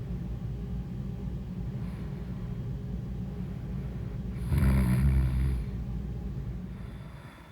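A woman snoring in her sleep: a steady low snore that swells into a louder snore about four and a half seconds in, then dies down near the end.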